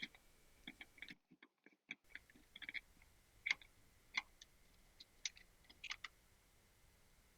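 Faint, irregular small clicks and ticks of plastic and metal as a hard-wired smoke detector's mounting base is worked off the ceiling electrical box. The sound cuts out completely for about a second near the start.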